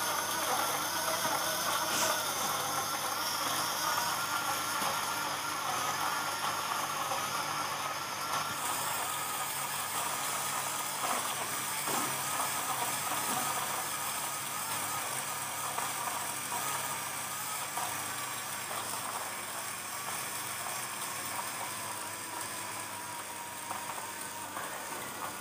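Small battery motor of a rechargeable portable blender bottle running steadily, its blades churning banana, milk and sugar into a shake.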